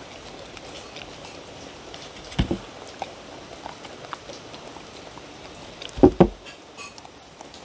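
A dog licking and chewing the last food from a wooden bowl, with a patter of small tongue and teeth clicks. Two pairs of louder knocks come from the bowl being bumped, about two and a half seconds in and again about six seconds in.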